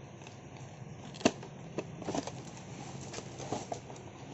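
Handling sounds: one sharp click about a second in, then several lighter clicks and taps.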